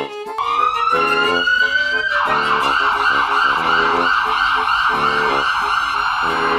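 Emergency-vehicle siren: a wail rising for about two seconds, then switching to a fast warbling yelp, over cheerful background music.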